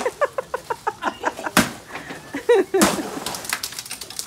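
A stick whacking a hanging piñata with two sharp strikes about a second apart, amid a quick run of short voice sounds from the party.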